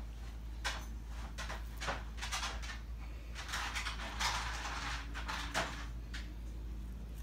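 Hand-handling noise: scattered soft rustles and scrapes, with a longer, denser rustle about three and a half seconds in, as sliced ham is laid and pressed onto seasoned slices of beef in a glass baking dish.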